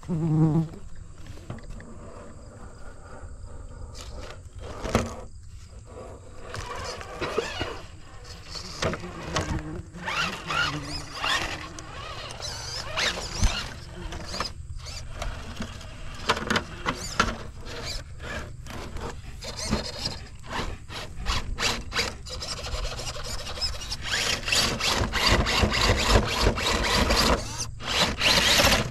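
Electric RC rock crawlers with Hobbywing Fusion SE 1800 motors driving over rough ground: a squealing motor-and-drivetrain whine with tyres scrabbling and many sharp knocks and clatters as they climb. Late on, a longer stretch of dense, steady scrabbling noise.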